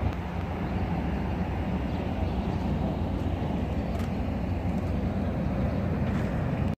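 Steady low rumble of road traffic, with no distinct passes.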